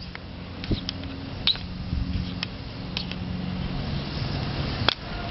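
Light metallic clicks of an Allen wrench tightening the clamp screws, a few scattered ticks with a sharper click near the end, over a steady low hum.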